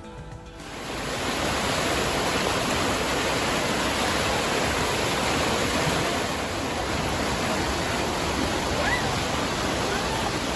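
Düden waterfall's water falling, a steady loud rushing that rises in about a second in as music ends.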